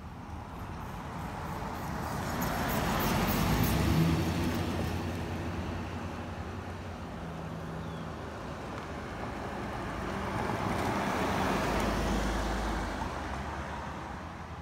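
Two road vehicles driving past one after the other, each swelling up and fading away; the first is loudest about four seconds in, the second about twelve seconds in, with a low engine hum.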